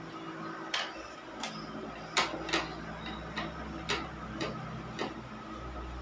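Sharp little clicks of a screwdriver tip against the metal terminal screws of a window air conditioner's control switch as the wiring is undone, about eight irregular ticks over a steady low hum.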